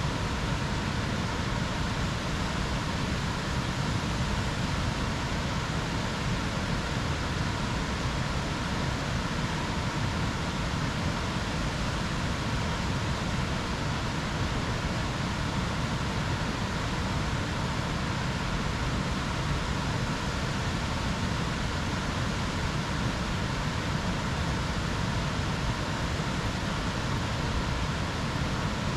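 Steady outdoor rushing noise, even and unbroken, heaviest in the low end.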